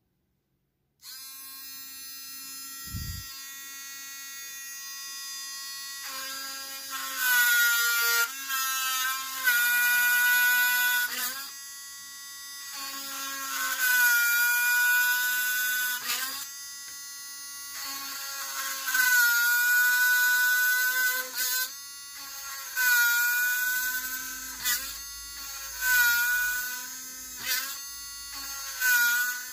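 Small brushed DC motor with a twist drill bit on its shaft, starting about a second in with a steady whine. Again and again the bit bites into a thin strip: each time the whine gets louder and drops in pitch as the motor slows under the load, then rises back as the bit frees.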